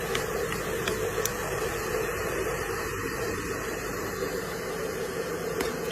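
Steady hiss with a constant low hum.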